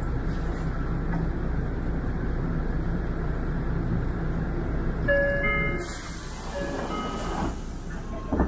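Steady low rumble of a moving public-transport vehicle. About five seconds in come a few short electronic chime tones, followed by a hiss and more tones.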